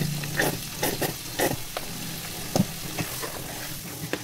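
Sliced bell peppers and onion sizzling in a frying pan as they are stirred, with irregular clicks and scrapes against the pan.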